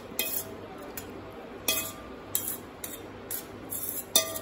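Metal spoon scraping and clinking against a stainless steel bowl as cooked onions are scraped out into a mixer jar: a string of short, light clinks and scrapes.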